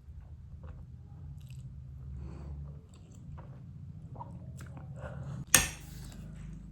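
Close-miked chewing and biting, with small wet clicks and soft crunches. One sharp, loud click about five and a half seconds in.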